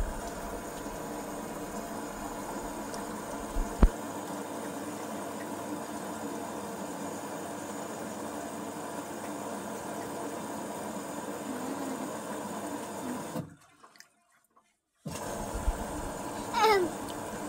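Front-loading washing machine on a wash cycle: water and laundry sloshing in the turning drum over a steady machine hum. There is one sharp click about four seconds in, and the sound cuts out completely for about a second and a half near the end.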